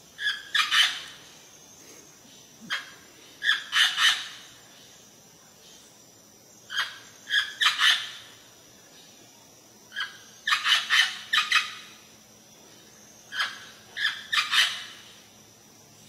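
Amazon parrot calling: short, harsh calls in clusters of two to five, a cluster every three seconds or so.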